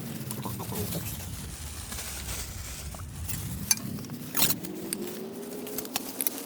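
Rustling, scraping handling noise with a few sharp clicks as the plastic retaining tabs on the back of a fog lamp housing are pressed and forced open.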